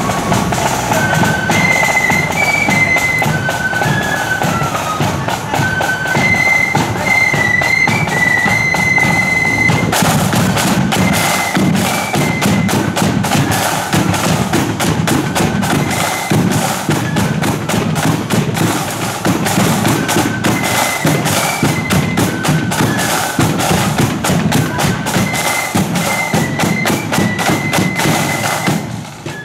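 Marching flute band playing a tune: a high, shrill flute melody over steady side and bass drum strokes. The playing breaks off briefly near the end.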